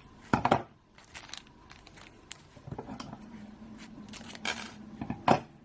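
Small plastic parts packet being cut open with scissors and handled: a few short snips and crinkles, the loudest about half a second in and again near the end.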